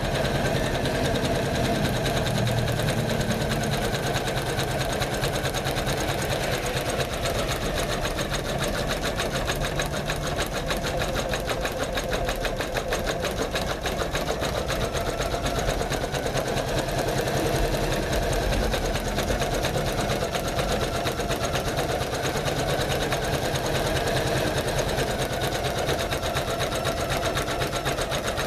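Janome MC500E computerized embroidery machine stitching steadily at a fast, even rate.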